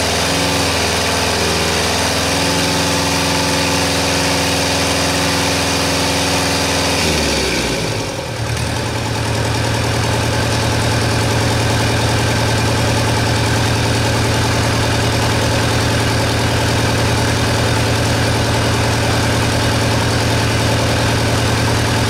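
Deutz F4L1011 four-cylinder diesel engine running steadily during its run-in. About seven seconds in, its note falls away over a second, then it settles back into a steady run.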